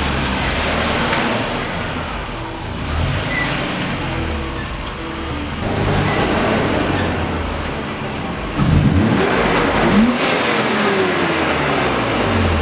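BMW E36 engine running as the car is driven slowly, with revs rising and falling about nine to eleven seconds in.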